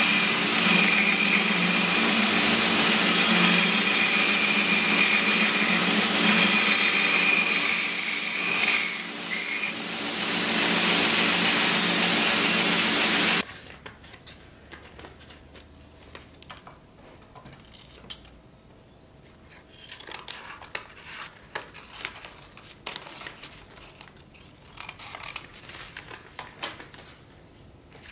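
Bench belt grinder running, with a small metal part held against the abrasive belt; the grinding noise eases for a moment about nine seconds in. About halfway through the sound stops suddenly, leaving only faint rustles and small taps of paper being handled.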